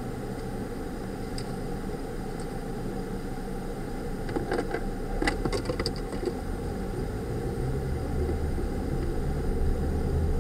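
Car engine and road noise heard from inside the cabin: a steady low rumble that slowly grows louder toward the end as the car gets moving, with a few faint clicks about halfway through.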